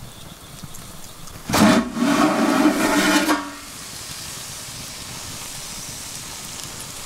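A loud sound with a steady pitch lasts about two seconds near the start. After it comes steady hissing from the wood fire under a smoker box of sea trout being hot-smoked.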